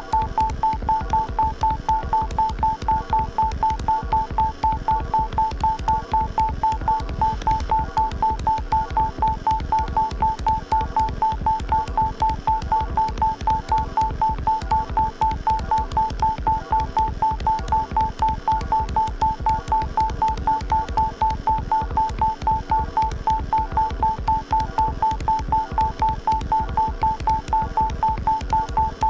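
Live electronic music: a steady, rapid train of pitched electronic beeps, about three a second, over low pulsing thumps, with no change in pattern.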